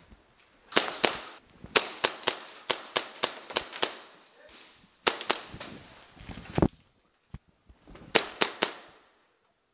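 Airsoft guns firing: sharp snapping shots in several quick strings, with short pauses between.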